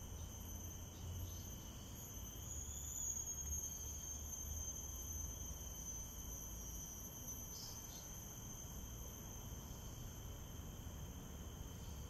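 Insects calling in a steady, continuous high-pitched chorus, several held tones at once, over a faint low rumble.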